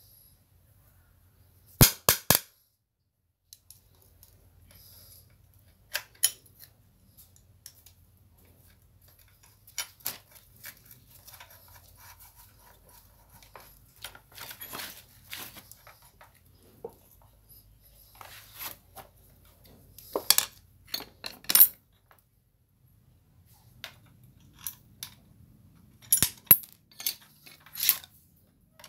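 Scattered sharp metallic clicks and clinks from a steel mounting bracket, screws and a screwdriver knocking against a small engine's housing as the bracket is fitted and screwed on. The loudest clinks come in quick pairs and threes near the start, about two-thirds through and near the end.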